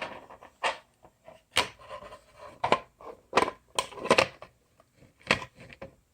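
Handling of an opened 3D-printed plastic clock case and its parts: irregular clicks, knocks and scrapes of plastic being moved and set down.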